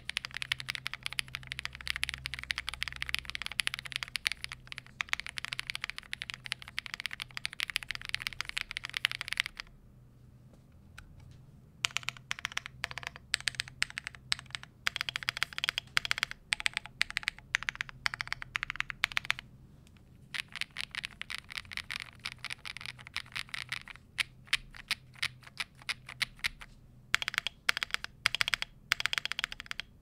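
Typing test on an Epomaker EK75 gasket-mounted mechanical keyboard with a polycarbonate plate, case and plate foam, factory-lubed Epomaker Jade Blossom linear switches and dye-sublimated PBT cherry-profile keycaps. Fast continuous keystrokes for about ten seconds, a pause of about two seconds, then typing in shorter runs broken by a few brief gaps.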